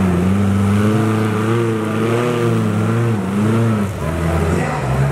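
Off-road competition buggy's engine running under load in mud, its revs rising and falling in waves and easing off about four seconds in.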